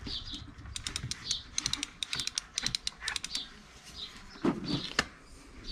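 Irregular run of light metallic clicks and rattles as a bicycle chain and rear hub-motor wheel are worked back into place, then two knocks about half a second apart near the end. Birds chirp throughout.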